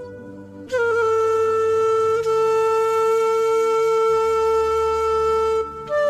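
Background music: a long held melody note over a soft low drone, entering under a second in and giving way near the end to a new, slightly higher note.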